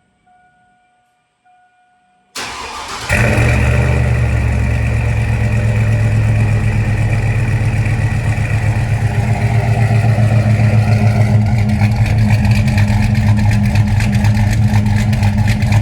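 Faint repeating chime, then a pickup truck engine cranks briefly and starts about two and a half seconds in. It settles into a steady idle, running choppier near the end.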